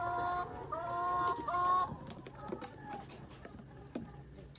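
Chicken calling: three drawn-out, steady-pitched squawks in quick succession over the first two seconds, followed by a few faint knocks and scuffs.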